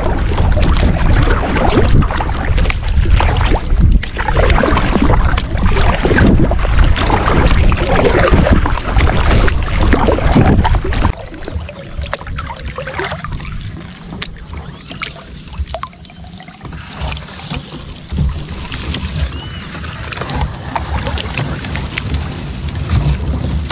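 Kayak paddle strokes dipping and splashing in the water, with heavy wind buffeting the microphone through the first half. About halfway through the wind drops away and the paddling goes on more quietly under a steady high-pitched buzz.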